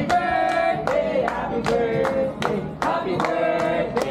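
Group singing a birthday song with hands clapping along in a steady beat, the sung notes long and held.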